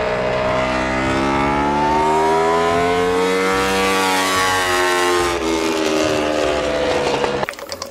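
Racing motorcycle engine sound, a steady engine note whose pitch climbs slowly and then falls back before it stops near the end.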